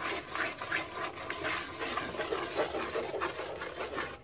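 Wooden spatula stirring and scraping through hot sugar syrup in a metal wok, a quick irregular rasping several strokes a second.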